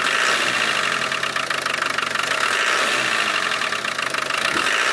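Land Rover 300Tdi four-cylinder turbodiesel idling, heard close at the inlet manifold: a steady, rapidly pulsing hiss of air pressure escaping through the failed inlet manifold gasket over the engine's clatter.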